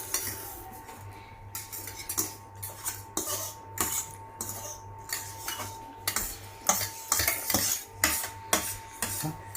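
Spoons clinking and scraping against dishes as noodles are eaten quickly, in irregular clinks that come thicker in the second half.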